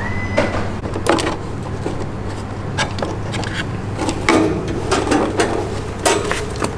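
Irregular clicks, knocks and rustles as a hand handles a plastic food bowl inside a wire guinea pig cage lined with wood litter, over a steady low hum.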